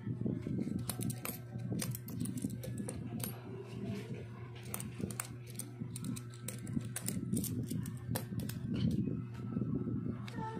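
Peso coins clinking against one another as they are picked up and stacked by hand while being counted: many scattered, irregular clicks over a steady low hum.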